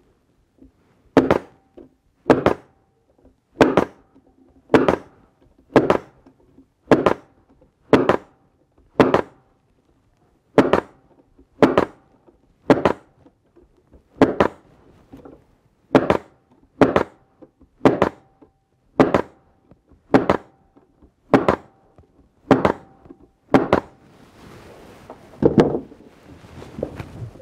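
Pneumatic narrow crown staple gun firing staples into wooden beehive frame parts held in an assembly jig: about twenty sharp shots, roughly one a second. After the last shot come a few softer knocks and handling noise.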